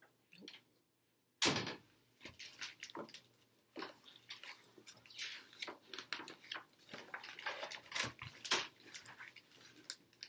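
A dog barking again and again, starting abruptly about a second and a half in, mixed with the rustle of a picture book's paper pages being turned.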